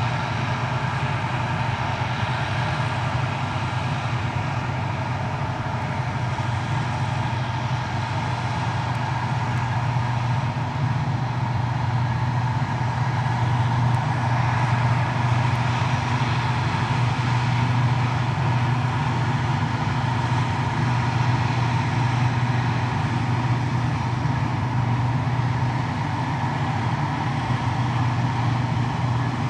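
New Holland FX450 self-propelled forage harvester working steadily in standing wheat, its engine and chopper running as it cuts and blows wholecrop silage, with a tractor and trailer running alongside. The hum swells a little louder a little over ten seconds in.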